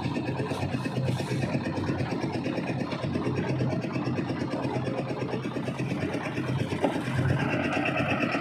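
An engine-driven machine running steadily with a fast, even chatter, growing a little louder near the end.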